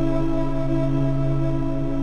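Ambient background music of steady, held drone tones with no beat.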